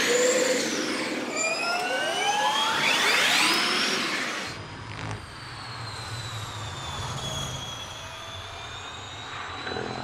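Electric powertrain whine of a BMW i Andretti Motorsport Gen2 Formula E car accelerating, rising steeply in pitch twice in quick succession. After a cut about four and a half seconds in, a quieter, steadier high whine dips slightly in pitch over a low rumble as the car runs at speed.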